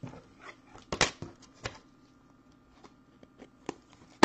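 Trading cards and paper being handled on a desk: a scatter of short clicks and rustles, the sharpest about a second in.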